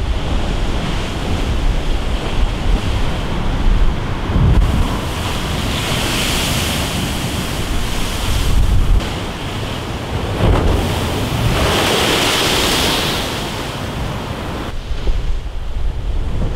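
Hurricane-driven storm waves crashing against a sea wall, the surf hissing loudly twice as waves break and spray washes over the wall. Wind rumbles on the microphone throughout.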